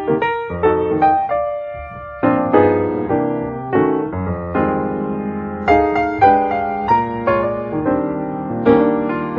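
Background piano music: a gentle tune with chords, each note struck and fading away.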